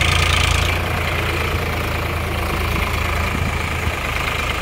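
Eicher 551 tractor's three-cylinder diesel engine running steadily as its front loader tips out a bucket of soil. A higher hiss on top of the engine drops away under a second in.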